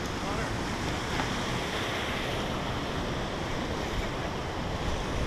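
Steady wind noise on the microphone mixed with ocean surf washing in.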